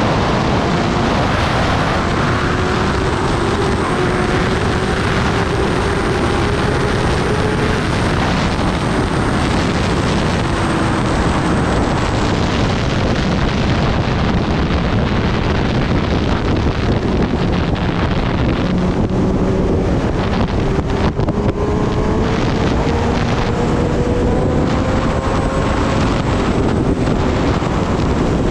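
Heavy wind noise on the microphone from riding at speed, with a Kawasaki Ninja ZX-10R's inline-four engine running underneath; the engine pitch fades in the middle and climbs slowly through the second half.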